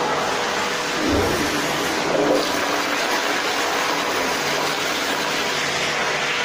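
American Standard Madera toilet flushing through a flushometer valve: a loud, steady rush of water into the bowl, with a low thump about a second in.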